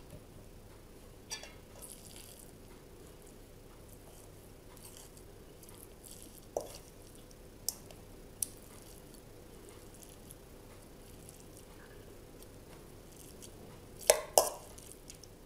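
Metal spoon clinking now and then against a stainless-steel bowl while meat filling is scooped and pressed into green peppers: a few light clicks, then two louder clinks close together near the end.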